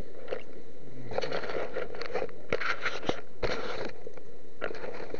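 Dry fallen leaves crunching and rustling in short, irregular bursts as a person moves in the leaf litter, with a few sharp clicks among them.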